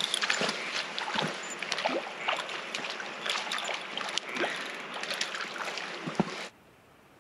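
Shallow water running and splashing over granite at a lake's edge, a steady rush dotted with small clicks and splashes. It cuts off suddenly about six and a half seconds in, leaving only a faint hiss.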